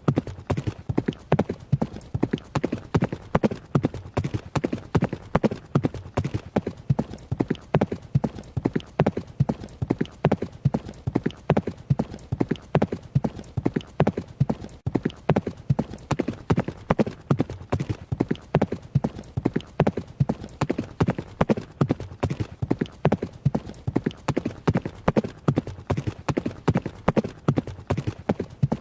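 Horse hooves at a run: a fast, even clatter of hoofbeats that keeps on without a break.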